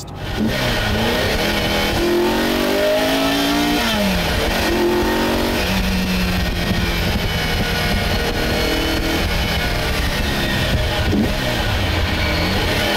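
1976 Ferrari 308 GTB's naturally aspirated V8 accelerating through the gears, its pitch climbing and then dropping back at each gear change, several times over.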